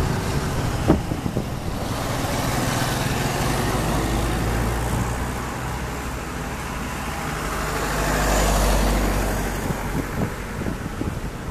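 Single turboprop engine and propeller of a Cessna 208 Caravan running at takeoff power as the plane lifts off and climbs away, growing louder for a moment about eight seconds in, then easing. A sharp click about a second in.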